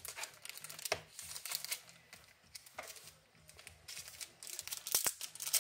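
Crinkling and rustling of handled packaging with scattered light taps and clicks, with a louder burst of crinkling about five seconds in.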